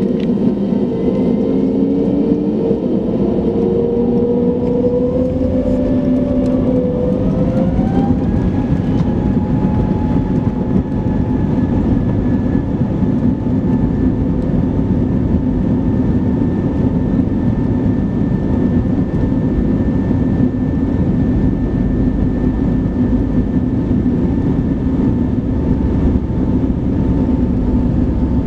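Airbus A320neo turbofan engines heard from the cabin, spooling up to takeoff thrust: their whine rises in pitch over the first eight seconds or so, then holds steady. A low rumble of the wheels on the runway grows as the aircraft accelerates on its takeoff roll.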